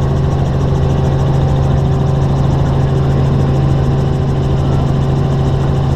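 Helicopter in flight, heard from inside the cabin: engine and rotor running steadily with a strong, even low hum.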